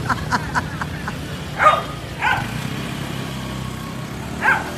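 A dog barks three times, spaced out, over a steady low drone of passing motorbike and scooter traffic; a quick run of short sharp sounds comes right at the start.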